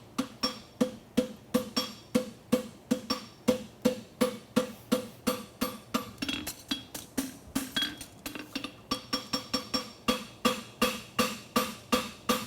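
Farrier's hand hammer striking a steel horseshoe on an anvil at a steady rhythm of about three blows a second, each blow with a short metallic ring, while the heel of the shoe is being shaped. The blows are a little softer for a few seconds near the middle.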